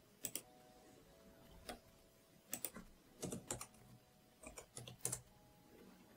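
Computer keyboard and mouse clicks: about a dozen short, sharp taps in small clusters, a few per second.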